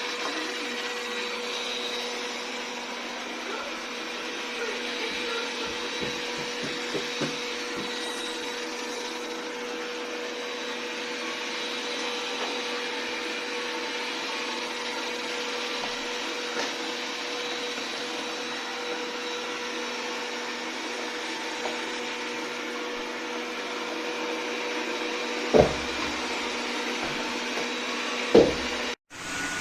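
Robot vacuum cleaner running, a steady whine over a hiss. Two loud thumps come near the end, then the sound cuts off suddenly.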